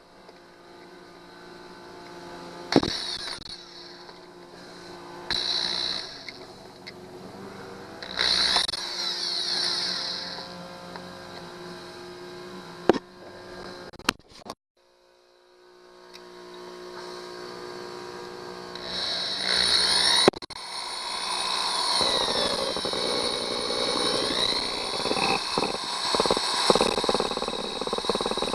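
Electric drill running with a titanium bit, boring into a rust-seized broken screw stud on an outboard motor. The motor pitch rises and falls with the trigger in several short surges, stops briefly about halfway through, then runs longer and louder near the end.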